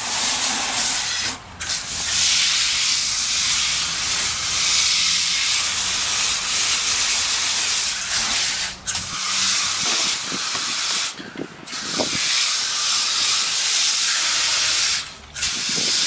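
Garden hose spray nozzle jetting water onto a heat pump's outdoor condenser coil to rinse it: a loud, steady hiss of spray that stops briefly about four times.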